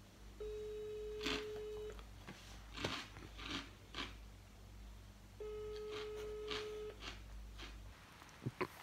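Telephone ringback tone heard through a smartphone's loudspeaker: a steady mid-pitched ring about a second and a half long, twice, five seconds apart, meaning the call is ringing out unanswered. A few short soft noises come between the rings.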